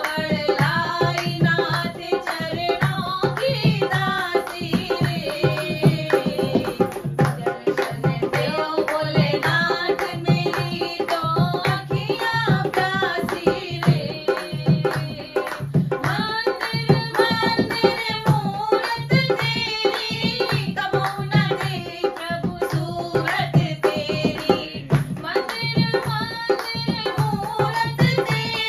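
Women singing a Hindi devotional bhajan in unison to a dholak played in a steady rhythm, with hand-clapping keeping time.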